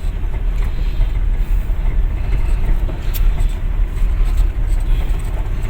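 Vehicle driving along a road: a steady low engine and tyre rumble.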